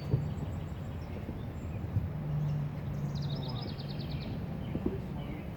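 A songbird singing a fast, slightly descending trill about three seconds in, over a steady low hum and a few light knocks.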